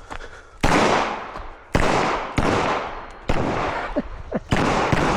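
Five pistol shots fired at an uneven pace, roughly a second apart, each ringing out and fading before the next; the first is the loudest.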